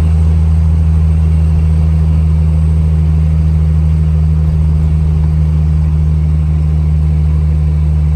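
Heavy truck's diesel engine running at steady revs, a constant low drone with no change in pitch.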